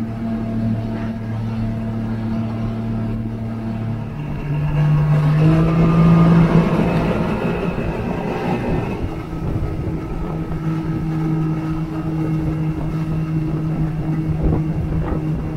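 Mercury 90 outboard motor running under way, its note rising about four seconds in and holding higher, over the rush of the wake and wind.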